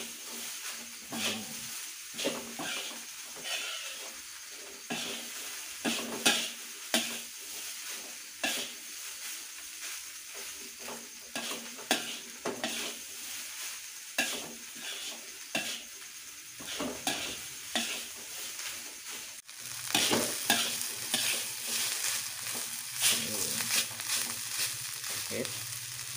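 Fried rice stir-frying in an aluminium wok: a steady sizzle with a metal spatula scraping and tossing the rice about once a second. The sizzle and scraping are louder and busier in the last several seconds.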